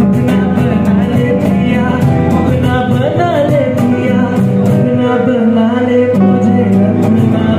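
A male vocalist singing live into a handheld microphone over instrumental accompaniment, amplified through a PA system.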